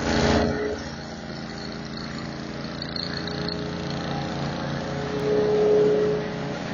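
Hammer mill with fan and cyclone running, driven by a 19 hp Kohler engine: a steady mechanical drone. It is louder for a moment at the very start, and a louder hum swells for about a second near the end.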